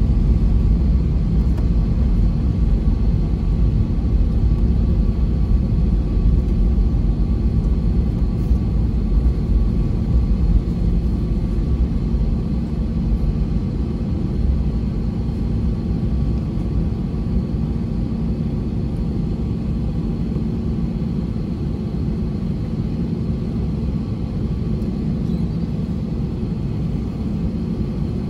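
Cabin noise of an Airbus A320neo taxiing: a steady low rumble from the Pratt & Whitney PW1100G geared turbofans at taxi power and the landing gear rolling on the taxiway, with a faint steady whine above it.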